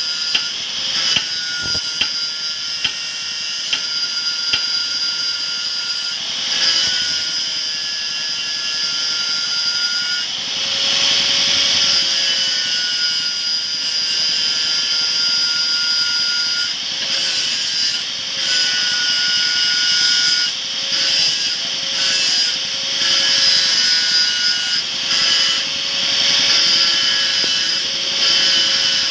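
Handheld electric angle grinder with a grinding disc running against the steel of a sawmill bandsaw blade, grinding the blade's end as a step in jointing it: a steady high-pitched whine with grinding hiss, dipping briefly several times, more often in the second half.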